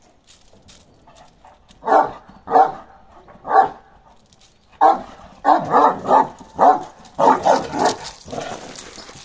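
Young Karakırçıl, a Turkish livestock guardian dog, barking: three single barks about a second apart, then a quicker run of barks.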